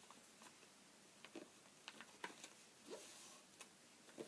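Faint rustling and scratching of a sheet of printer paper being handled and creased while it is folded, in a few short scattered scrapes.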